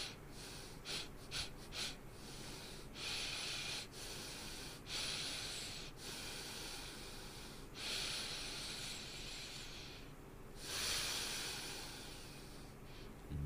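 A person breathing loudly through the nose close to the microphone: six quick sniffs in the first two seconds, then four long hissing breaths.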